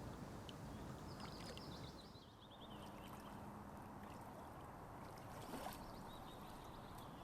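Faint lake-water ambience: soft, steady water sounds, with a short high run of chirps between about one and two and a half seconds in and a brief click about five and a half seconds in.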